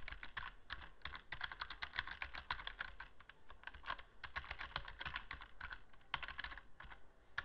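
Typing on a computer keyboard: quick runs of key clicks broken by brief pauses.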